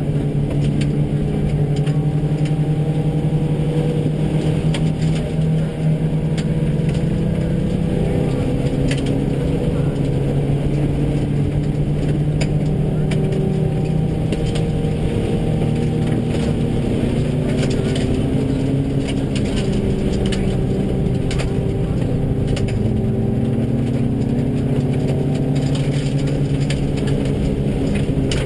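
Two in-car recordings of a Subaru rally car's flat-four engine at speed, one in each stereo channel, its pitch rising and falling as the driver accelerates and lifts on a dirt stage. Sharp clicks of gravel and stones hitting the car are scattered throughout.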